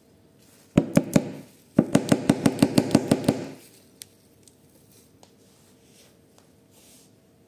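A run of sharp knocks: three about a second in, then about a dozen in quick succession at roughly seven a second, each briefly ringing.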